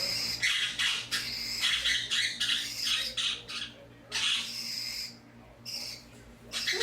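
Budgerigars chattering: quick runs of short, high, scratchy chirps and squawks, with a few brief pauses in the second half.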